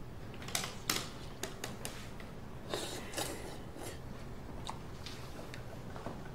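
Irregular light clicks and taps, about a dozen scattered unevenly, over quiet room tone.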